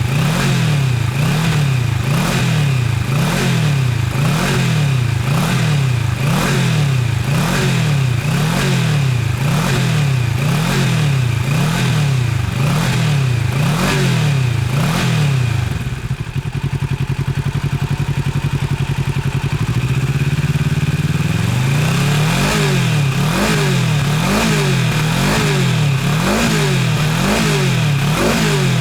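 Kawasaki Z650RS parallel-twin engine with an aftermarket full exhaust system, revved in quick throttle blips about once a second, the note rising and falling each time. About halfway through it drops back to a steady idle for a few seconds, then the blips start again.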